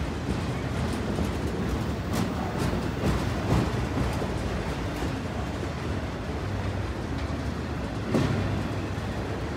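Loaded autorack cars of a long freight train rolling past: a steady rumble of steel wheels on the rails, broken by a few sharp knocks, the loudest about three and a half and eight seconds in.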